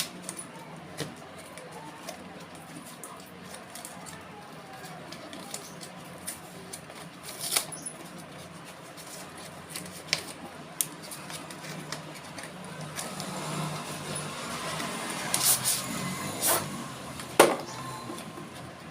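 A taped parcel being opened by hand: plastic packaging and tape rustling, with scattered sharp clicks and taps. A longer stretch of tearing and crinkling builds about two-thirds of the way through, followed by a few loud snaps.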